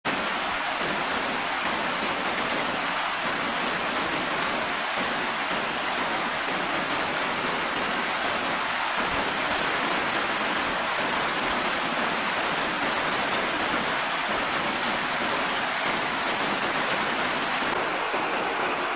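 Shallow rocky stream rushing and splashing over stones, a steady, unbroken sound of running water.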